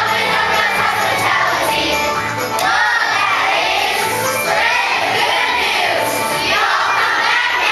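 Children's choir singing a song with musical accompaniment.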